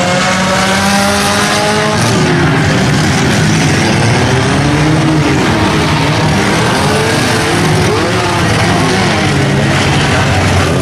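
Several race car engines running and revving at once on a dirt track, their pitch rising and falling continuously.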